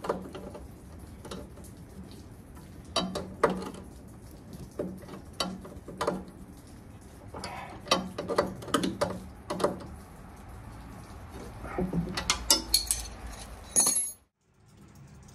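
Irregular metal clicks and clinks, in scattered clusters, of an adjustable wrench working the shear pin bolt and nut on the auger shaft of an Ariens Classic 24 snowblower. The sound cuts off suddenly near the end.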